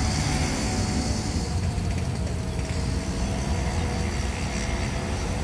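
Distant diesel-electric train: a low, steady engine rumble as it approaches.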